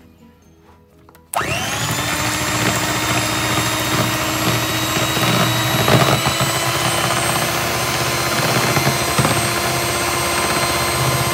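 Electric hand mixer switched on about a second in, its motor whining up to speed and then running steadily as the beaters whip egg whites.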